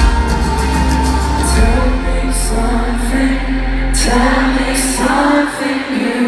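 Live pop-rock band playing with a male lead singer, loud and echoing as heard from far back in an arena. The heavy low bass drops away about five and a half seconds in, leaving the singing and lighter accompaniment.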